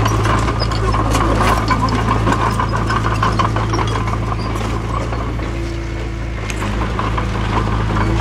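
Heavy diesel engine of earthmoving equipment running steadily, with scattered light clattering and knocks over the hum.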